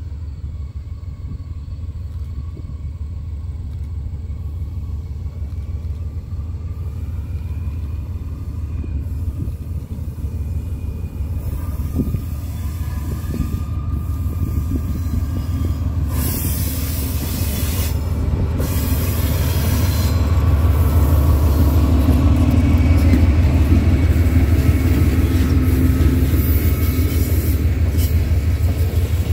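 GE B32-8 diesel locomotive's 12-cylinder engine rumbling as it approaches at the head of a passenger train, growing steadily louder. From about twenty seconds in, the passenger coaches roll close past with the steel wheels running on the rails.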